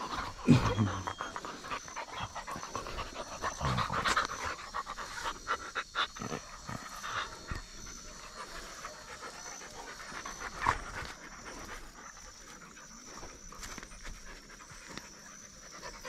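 Several dogs panting close by as they crowd around and are petted, with scattered short knocks and rustles. The loudest moment is a brief low sound that falls in pitch about half a second in.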